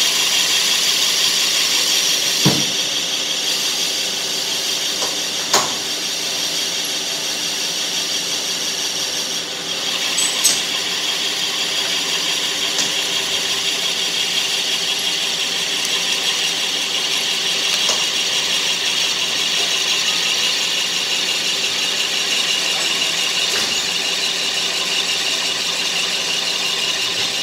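Metal lathe turning a PTFE (Teflon) tube while the cutting tool shaves it into fine chips: a steady, high hissing machine noise, with a few sharp clicks about two and a half, five and a half and ten seconds in.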